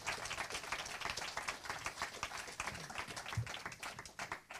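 A congregation applauding, many hands clapping densely, the applause dying away near the end.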